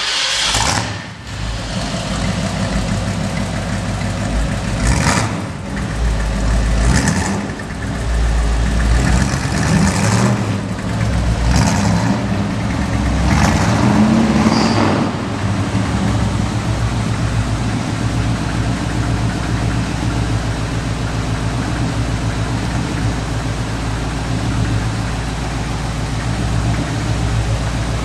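Ford 302 V8 in a 1953 Ford F-100 pickup, running just after starting: it is blipped up several times in short revs over the first fifteen seconds or so, then settles into a steady idle.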